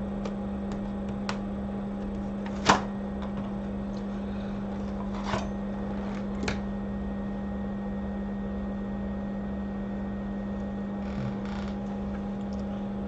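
Steady low electrical hum of bench equipment, with a few sharp clicks of small tools or metal stencils being handled; the loudest click comes a little under three seconds in.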